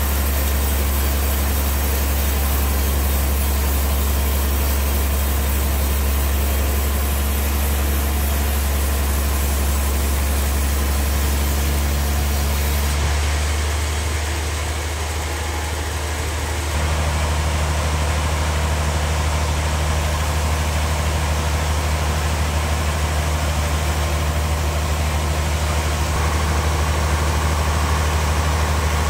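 Large bandsaw mill running with a steady, deep machine hum as a big trembesi log is fed through the blade. The sound shifts abruptly about halfway through.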